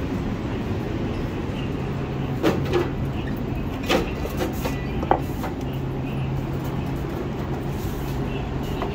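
Steady low rumble and hum of a Metro light-rail train standing at the platform, with a few sharp clicks and knocks in the middle.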